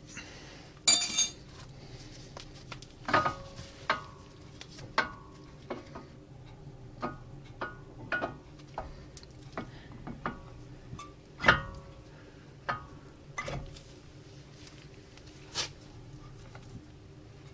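Irregular metallic clinks and knocks from a brake caliper and its parts being handled and seated back over new brake pads. Some strikes ring briefly, and there is a short scraping rattle about a second in.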